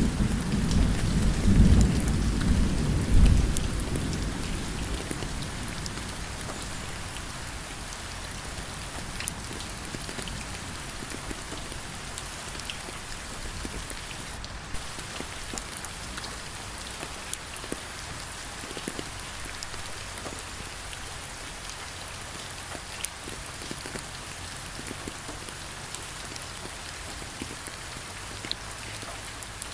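A roll of thunder rumbles over steady rain and dies away within the first few seconds, leaving a steady downpour with scattered drops ticking.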